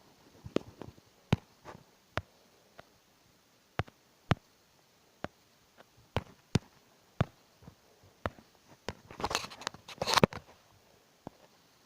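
Irregular sharp clicks and taps, roughly one every half second, with a denser, louder clatter of clicks about nine to ten seconds in.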